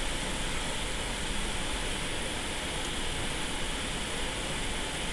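Hot-air rework station blowing a steady hiss of heated air onto a phone motherboard to soften the underfill glue for scraping.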